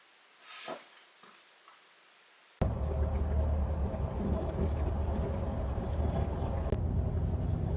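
A brief faint tick, then, after a sudden cut, a steady loud low rumble of road vehicles.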